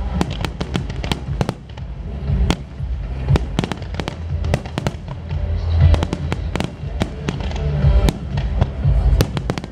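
Aerial fireworks bursting: a dense run of sharp bangs and crackling reports over deep rumbling booms.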